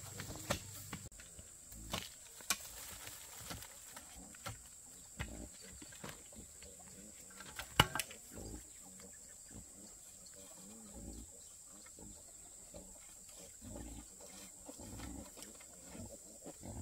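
A pig grunting now and then in low, rough grunts, among scattered sharp knocks, the loudest about eight seconds in. A thin, steady high tone runs underneath.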